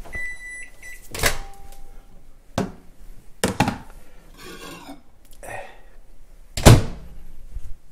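Over-the-range microwave oven beeping a few short high beeps as it finishes, then its door being opened and handled: several sharp clunks and knocks, the loudest near the end as the door is shut.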